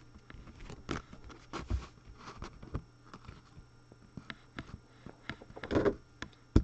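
Trading cards being handled on a tabletop: cards sliding, flicking and tapping, with scattered small clicks and rustles. There is a louder rustle about six seconds in, and a sharp tap at the very end.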